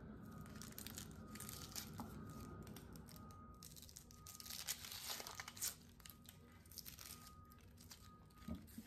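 Dry, papery onion skin being peeled off a yellow onion by hand: faint crinkling and tearing, in short irregular rustles that are loudest about halfway through.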